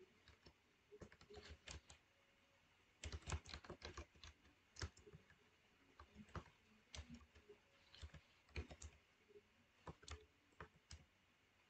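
Typing on a computer keyboard: faint, irregular keystrokes, with a quick run of louder ones about three seconds in.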